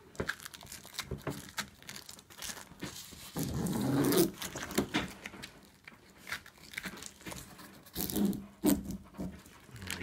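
Ripcords being pulled along a 48-fiber optic cable, tearing its plastic jacket open in a run of scratchy rips and crackles, with gloves rustling on the cable. Two brief pitched sounds stand out, one in the middle and one near the end.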